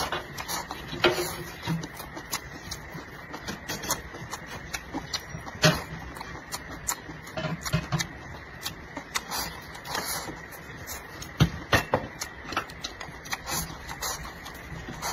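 Close-miked eating: chopsticks clicking against a porcelain bowl while a person shovels in rice and stir-fried vegetables, with chewing and lip-smacking, in irregular bursts of clicks.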